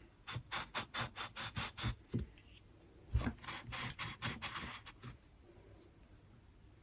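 Two bouts of quick rubbing or scraping strokes, about six a second, with a few soft knocks among them.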